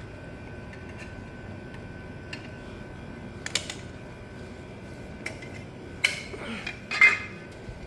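A few light metallic clicks and clinks as a screwdriver works on a boiler's aquastat, over a faint steady high-pitched hum.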